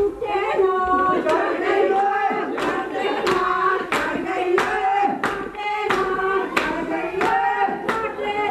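A group of women singing a wedding folk song together without instruments, keeping time with a steady beat of hand claps, about one and a half claps a second.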